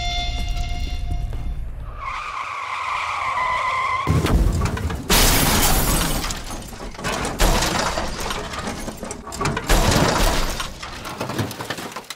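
Car tyres screeching for about two seconds, then a car crash: several loud crunching impacts with breaking glass over the next eight seconds.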